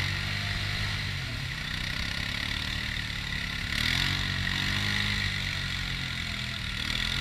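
ATV engines: one idles steadily close by, while another revs up and down about halfway through as the quad churns through a mud hole.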